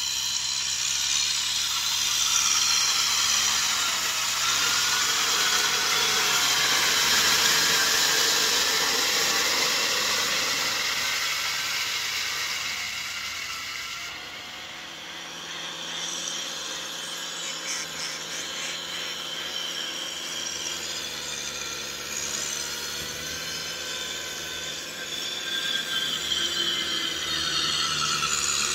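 Kubota M6040SU tractor's diesel engine running steadily under load in deep mud, with a high, wavering whine over it. The sound drops briefly about halfway, then picks up again.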